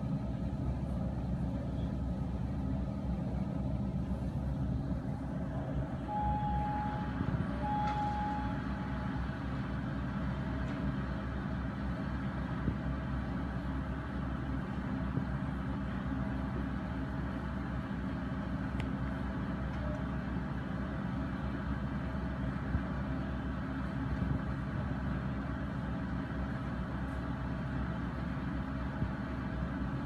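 Komatsu hydraulic excavator's diesel engine running as it digs, a steady low rumble. Two short high-pitched tones sound about six and eight seconds in.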